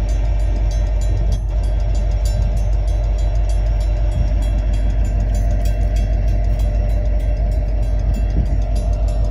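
Union Pacific freight train's diesel locomotive running as it nears the crossing, a loud, steady low rumble. Over it the grade-crossing warning bell rings in rapid, even strokes.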